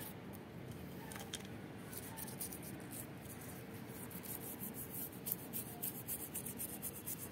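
Toothbrush bristles scrubbing a turtle's shell: a faint, quick scratching of many short strokes, which come faster in the second half.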